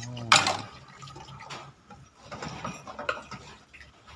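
Water splashing and trickling at a dishwashing sink, with one loud brief hit about a third of a second in and small irregular clinks and splashes after.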